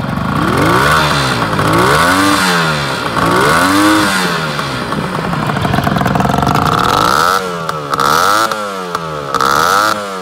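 Suzuki GT380's inline three-cylinder two-stroke engine revved several times at standstill, each throttle blip rising and falling in pitch.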